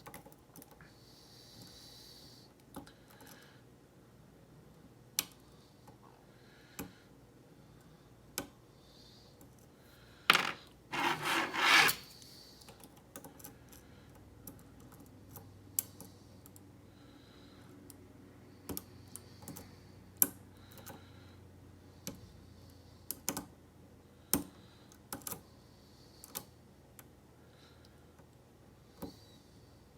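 Metal lock pick working the pins of a Schlage SC1 kik cylinder held under a tension bar: scattered small clicks and ticks as pins are lifted and set. A brief louder scraping rustle comes about ten to twelve seconds in.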